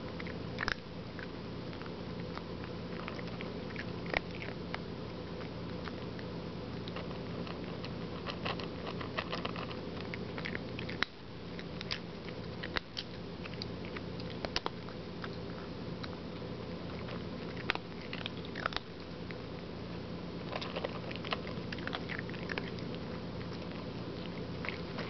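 Cat eating dry kibble from a plastic bowl: irregular crunches and clicks of chewing, over a steady low hum.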